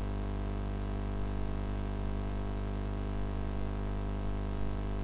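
Steady electrical hum with many overtones, unchanging throughout, the kind of buzz a recording setup picks up.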